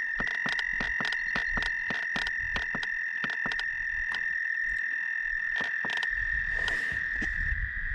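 Frogs calling, a steady high trill with a regular run of sharp clicks about three a second that thins out about halfway through.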